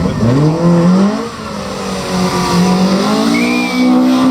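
A 2-litre Group A Vauxhall Astra rally car's engine accelerating hard from a launch, with the front wheels spinning and a short tyre squeal. The revs climb for about a second, drop at a gear change, then climb again.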